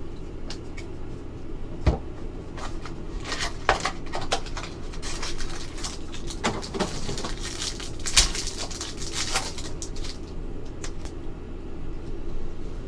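Hands handling a Topps Museum Collection mini box of football cards and tearing open the clear plastic wrapper of the card pack inside. Scattered clicks and taps come first, then dense plastic crinkling and ripping through the middle. A steady low hum runs underneath.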